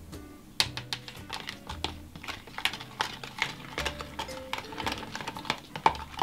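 A metal spoon stirring cornflour into a liquid sauce in a plastic measuring jug. It makes quick, irregular clicks and taps against the jug's sides and bottom.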